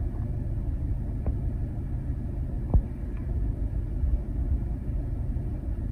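Low steady rumble of a car engine idling, with a faint knock a little before three seconds in.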